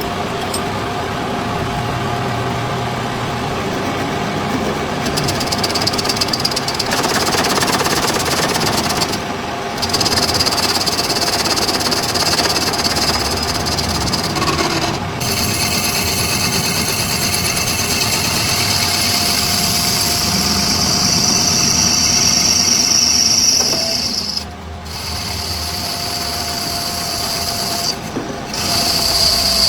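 Workshop machinery and power tools running during metal repair work on a hub housing: a steady mechanical noise with a high-pitched whine that comes and goes, breaking off abruptly several times.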